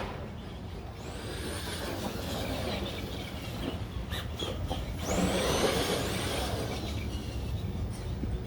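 Brushed electric motor and gears of a 1/10-scale CEN Racing RC monster truck on a 3S LiPo whining as it accelerates at high speed. The pitch rises about a second in and again, louder, around five seconds in, over a steady rushing noise.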